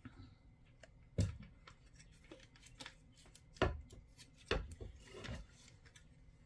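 Handling noise as a wooden scroll frame with cross-stitch fabric is picked up and moved: a sharp wooden knock about a second in, a louder one past the middle, then two more close together, with light rubbing and small ticks between.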